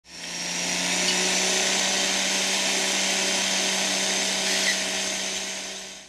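Steady mechanical noise of machinery running, a whining hiss over a constant low hum. It fades in at the start and fades out near the end.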